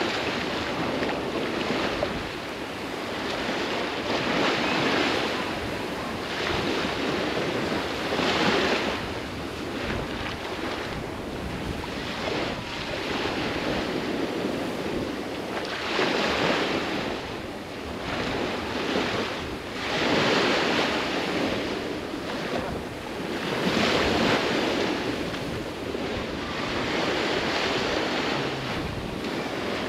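Sea waves breaking on a sandy beach, the surf noise swelling and fading every few seconds.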